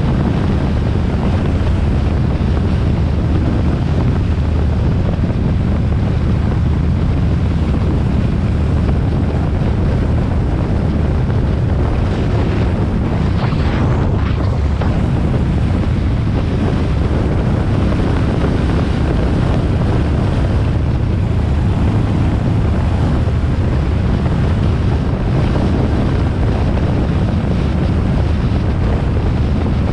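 Wind rushing over the microphone of a Harley-Davidson Sportster XL1200R at cruising speed, over the steady drone of its 1200 cc air-cooled V-twin. About halfway through, a brief louder hiss stands out.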